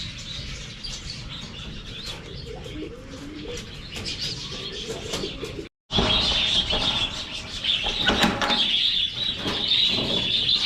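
A flock of budgerigars chirping and chattering continuously, with low pigeon coos underneath in the first half. The sound cuts out for a moment about halfway, then the chirping comes back louder.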